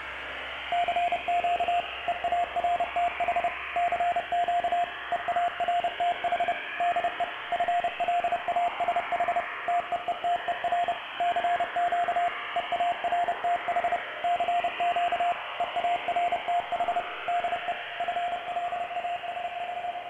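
Radio static hiss with a single beeping tone keyed on and off in short and long pulses, like Morse code, starting about a second in.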